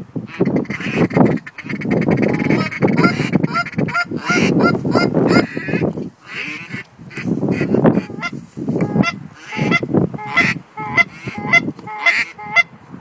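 Hand-held goose calls blown by hunters: a fast, continuous run of short honks, many with a sharp upward break in pitch.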